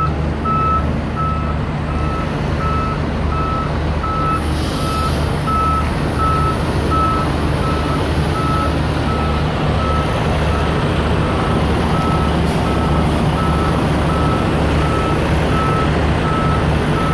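A diesel truck's reversing alarm beeping in a fast, even rhythm over the steady low drone of its engine as the road train backs up. A short hiss of air, like an air-brake release, comes about four and a half seconds in.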